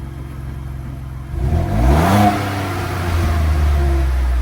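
Ford Bronco (6th generation) engine through its factory exhaust, idling and then revved about a second and a half in, held up for a couple of seconds and let back down. There is not a whole lot of rumble from the stock exhaust.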